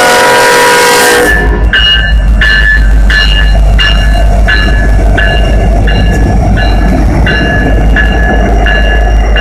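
A diesel locomotive's air horn blasting and cutting off about a second in, as new Norfolk Southern SD70ACe locomotives rumble past close by. A grade crossing bell dings about once every 0.7 seconds over the train noise.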